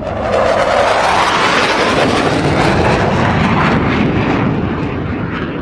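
Jet-like roaring rush made as the sound effect of a giant flying creature. A band of noise sweeps upward in pitch over the first second or so, then holds loud and steady and begins to ease off near the end.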